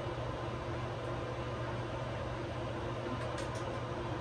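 Steady electric fan hum and hiss, constant throughout, with a few light clicks a little past three seconds in.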